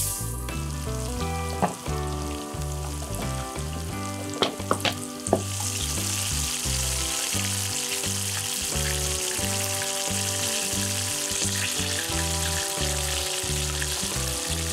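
Starch-coated chicken pieces deep-frying in 180 °C oil in a frying pan. There are a few sharp crackles in the first five seconds as more pieces go in, then a steady, dense sizzle, with background music underneath.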